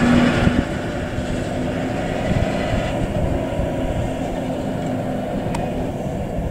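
Electric tram pulling away down the track, its motors giving a steady hum with a low tone over wheel-on-rail rumble, fading as it moves off.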